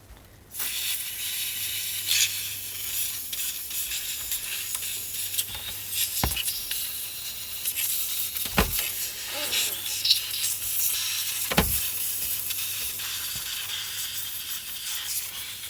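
Can of compressed-air duster spraying in a long, steady hiss, blowing dust out of a vintage boombox; the hiss starts about half a second in. Three dull knocks come partway through.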